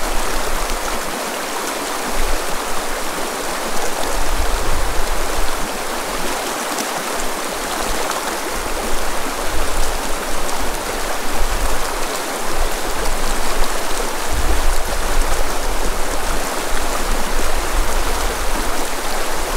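Shallow creek running and rippling over a rocky bed, a steady rush of water, with intermittent low rumbles.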